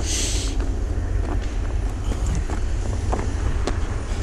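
Footsteps crunching on a gravel logging road, over a steady low rumble.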